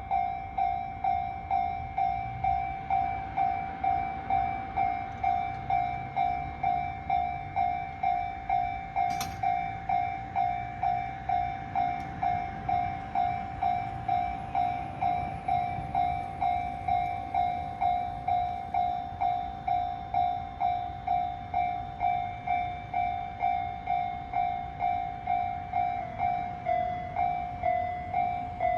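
Japanese railway level-crossing alarm ringing its electronic ding in an even, steady repeat roughly twice a second. Near the end the tone changes to a different stepped pattern, the change this crossing makes when both direction arrows light, meaning trains are coming from both sides.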